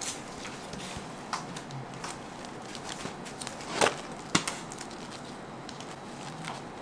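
Light handling clatter as flat cake boards and a plastic-wrapped steel cake ring are set down and shifted, with scattered small clicks and two sharper knocks a little past the middle, over a steady background hiss.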